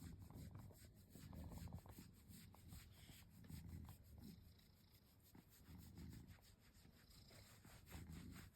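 Domestic cat purring faintly in slow swelling waves while being scratched, with light rubbing and scratching of fingers through its fur.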